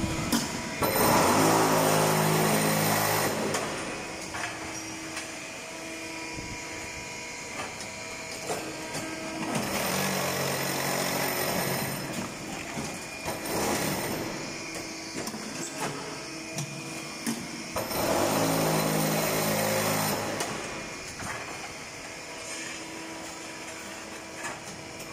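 Concrete paving-block making machine running through its production cycle. About every eight seconds, three times, a louder low drone lasts two to three seconds, the vibrating press compacting the concrete into the mould, with machinery clanks and knocks between.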